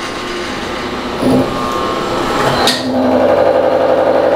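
Milling machine running with a face mill, the table feeding it toward the part. About three seconds in, the face mill starts a light 30-thousandths facing pass, and the sound turns louder with an even, rapid pulsing.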